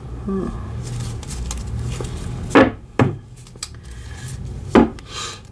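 A deck of tarot cards being shuffled and handled, with three sharp snaps of the cards: two close together about two and a half to three seconds in, and one near the end.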